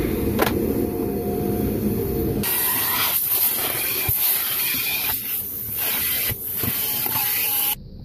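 Car wash vacuum hose running. A low rumble gives way abruptly, about two and a half seconds in, to a loud hiss of air rushing into the nozzle as it is worked over the car's carpet, wavering as the nozzle moves. It cuts off sharply near the end.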